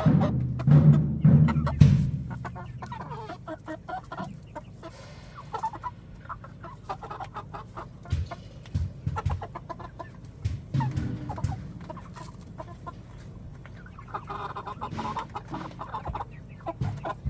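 Young chickens clucking in short, scattered calls. Background music with a drumbeat plays during the first couple of seconds.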